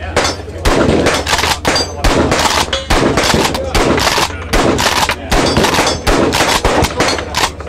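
Repeated gunshots, about two a second, including a Kel-Tec KS7 12-gauge pump-action shotgun firing birdshot.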